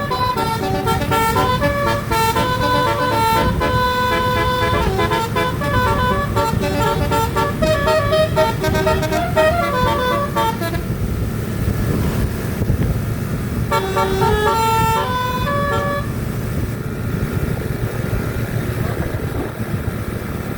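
Basuri multi-tone "telolet" bus horn playing a tune of quick stepped notes for about ten seconds, then a shorter phrase about 14 seconds in, over the steady low rumble of the bus's engine.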